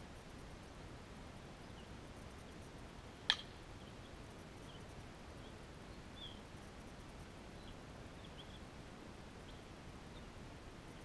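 A single sharp crack of a bat striking a ball, about three seconds in, over a steady outdoor background with faint, scattered bird chirps.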